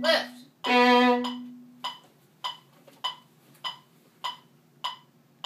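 A violin finishes the piece on a long bowed note that dies away about two seconds in. After it, a metronome keeps ticking steadily, a little under two ticks a second.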